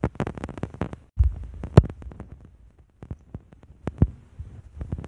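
Irregular sharp clicks and taps of chalk drawing on a chalkboard-painted scooter deck, with a few low handling bumps.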